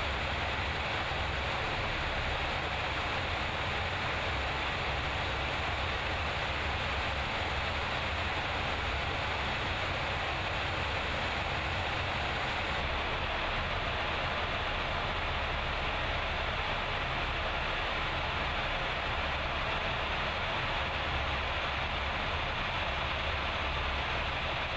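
Steady roar of an aircraft in flight heard from inside the cabin: an even rush of jet engines and airflow with no changes in pitch. The top hiss dulls slightly about halfway through.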